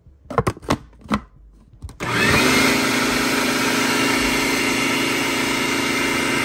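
A few sharp knocks, then about two seconds in a food processor motor starts and runs steadily, grinding a batch of plantain, green banana and yautía into a smooth dough.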